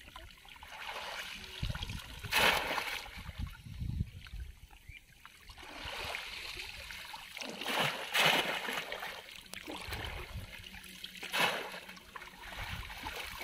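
Shallow water splashing and sloshing as people wade and work bamboo polo fish traps and their hands through it, with three loud splashes about two and a half, eight and eleven and a half seconds in.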